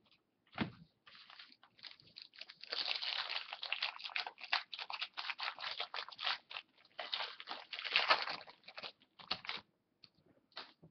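Plastic card pack wrapper crinkling in the hands, a dense crackle from about three seconds in until near the end, after a single soft knock just under a second in.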